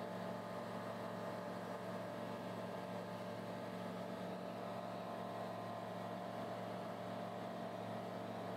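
Light ultralight aircraft's engine and propeller droning steadily at cruise, heard inside the cockpit, holding one even pitch.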